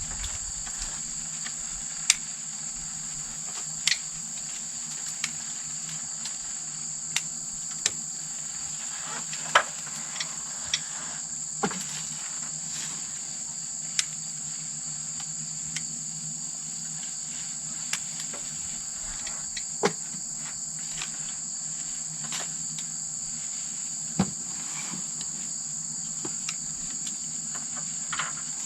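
Steady high-pitched chirring of late-summer insects such as crickets, with a dozen or so sharp clicks and snaps at irregular moments.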